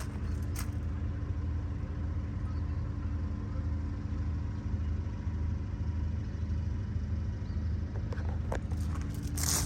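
Diesel engine of a New Holland B95 loader backhoe running at a steady idle, with a few sharp clicks and scrapes near the end.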